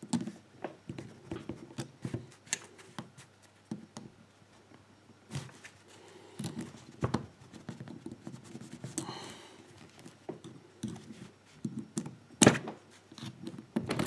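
Scattered small metallic clicks and taps of needle-nose pliers and bent wire against the steel layers of a laminated padlock as it is handled and taken apart, with one sharper click near the end.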